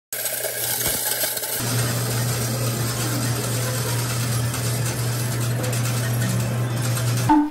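Arcade medal-counting machine running as it counts a bucket of medals: a steady motor hum with a continuous rattle of tokens passing through. It ends near the end with a short beep.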